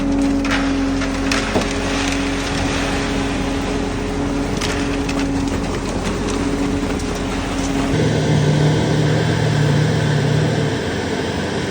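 Concrete-pouring machine's engine running steadily, with scraping and rattling over it. About eight seconds in the sound cuts abruptly to a lower engine hum.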